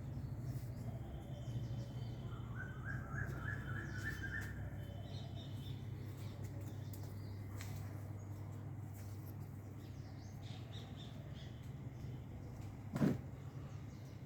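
A small bird chirping in a quick run of notes a few seconds in, over a steady low hum. A single sharp knock near the end.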